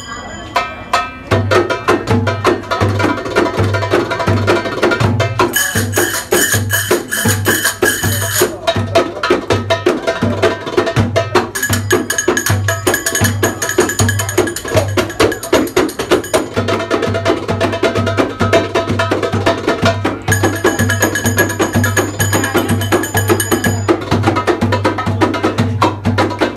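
Egyptian tanoura folk music: hand-played frame drums beating a fast, driving rhythm over a deep beat about twice a second, starting about a second in. A high melody line plays over the drums in long stretches.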